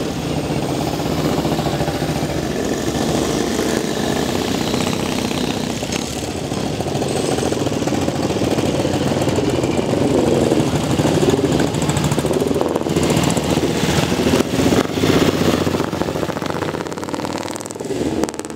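Several vintage motorcycle engines running as the bikes ride slowly past one after another, loudest about halfway through and fading near the end as the last one goes by.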